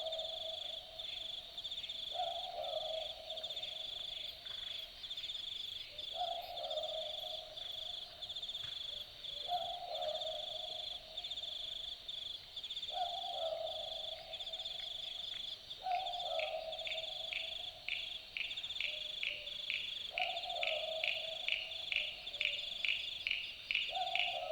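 Australian boobook owl giving its two-note 'boo-book' call, repeated about every three to four seconds, seven times in all. A steady high chirring of insects runs underneath, and a faster pulsing chirp joins about two-thirds of the way through.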